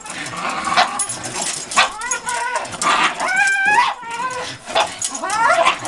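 Dogs whining and yipping in high, wavering cries as they hang by their jaws from suspended tug toys, with a few sharp knocks in between.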